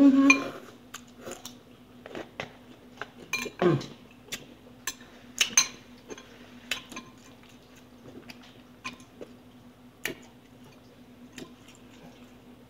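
Eating from a bowl with utensils: scattered sharp clicks and taps, roughly one a second at an uneven pace, over a low steady hum.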